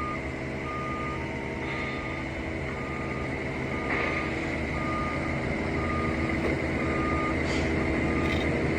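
Forklift reversing alarm beeping about once a second over the forklift's engine running as it backs away.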